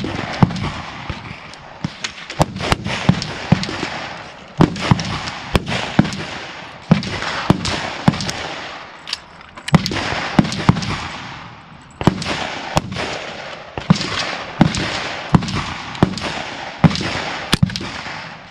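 Semi-automatic AR-style rifle fired in a steady string of shots, about one to two a second, mixed with gunfire from other shooters on the range. Each crack rings on in a long echo.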